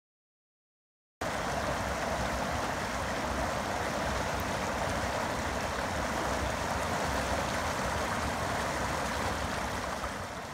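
Water pouring over a low weir in a continuous, steady rush. It starts abruptly after about a second of silence and begins to fade near the end.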